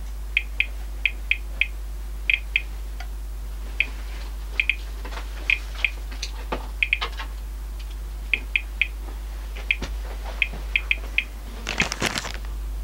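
Thermo Scientific RadEye G-10 gamma survey meter giving its audible count signal: short high chirps at random intervals, about two a second, each one a detected gamma event, while the display reads about 1.3 µSv/h. Near the end, the plastic bag rustles as a hand picks the meter up.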